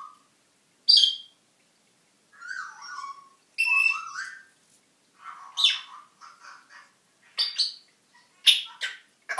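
African grey parrot calling: a string of about six short squawks and whistles, some sliding down or up in pitch, with gaps of a second or so between them.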